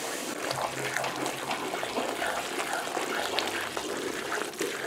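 Liquid poured into a large aluminium pot of flour and ghee as it is stirred with a wooden spoon: a steady wet pouring and sloshing with small crackles while the mixture turns to batter.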